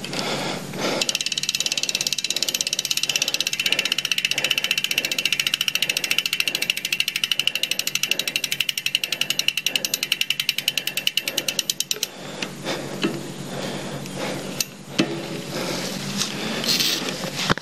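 Mountain bike's rear freehub ratcheting as the rear wheel turns: a rapid, even ticking that slows a little toward the end and stops about twelve seconds in. A few separate knocks follow.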